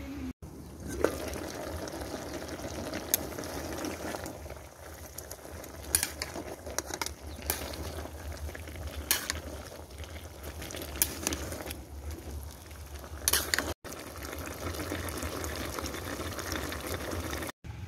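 Pot of pinakbet vegetable stew simmering in an aluminium pot: steady bubbling with scattered sharp clicks and pops.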